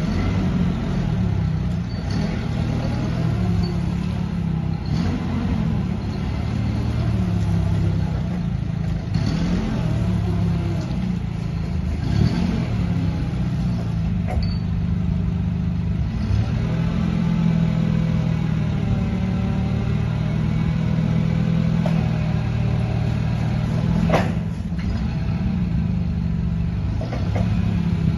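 Caterpillar GP15N LPG forklift's engine running, its note rising and falling as the truck is driven and the mast raised, with a whine that rises and falls over it in the middle stretch. There is a single sharp clack about three quarters of the way through.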